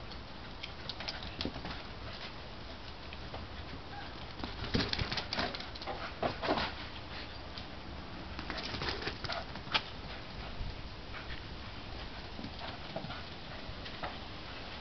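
A greyhound galloping on bare packed dirt: quick runs of paw thuds as he passes, loudest about five seconds in, again around six and a half seconds, and near nine seconds, with one sharp knock just after.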